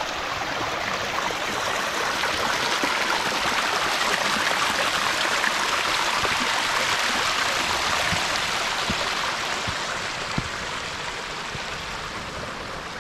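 Small freshwater cascade spilling over a flat rock slab into a creek pool: a steady rush of running water that grows a little quieter over the last few seconds.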